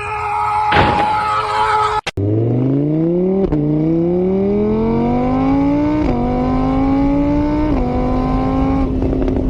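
A vehicle engine accelerating through the gears: its pitch climbs and then drops back at each of four gear changes. Before it, a steady pitched tone with a knock cuts off about two seconds in.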